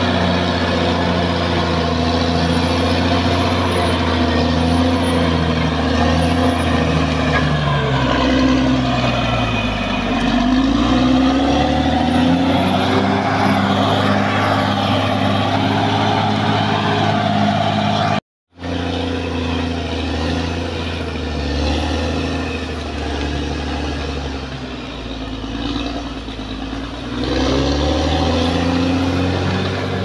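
Caterpillar D6R XL bulldozer's diesel engine running hard as it pushes soil, the revs dropping and then climbing again several times. The sound cuts out for a moment past the middle.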